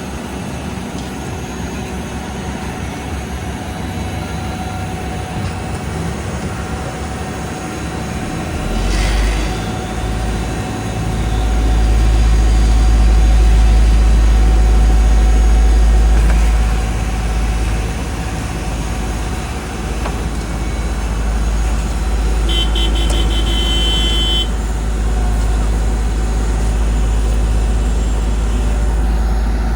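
Diesel engines of heavy asphalt-paving machinery running, with a deep rumble that swells about ten seconds in and eases after about sixteen seconds. A brief run of rapid high-pitched beeps comes about three-quarters of the way through.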